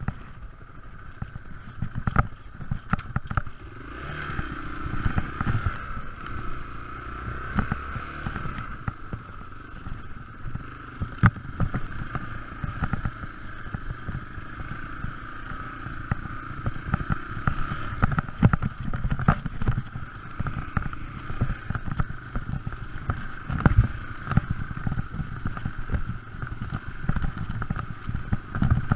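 Yamaha XT225 Serow's single-cylinder four-stroke engine running steadily as the dirt bike rides along a rutted, muddy trail, with frequent knocks and thuds from the bumps.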